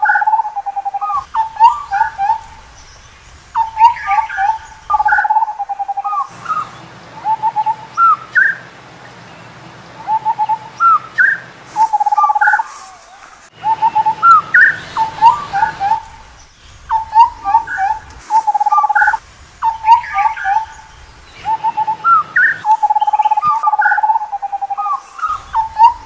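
Indian scimitar babbler calling: bursts of short fluty whistled notes, a level low hoot followed by quick upward-flicking notes, repeated over and over with brief pauses between bursts.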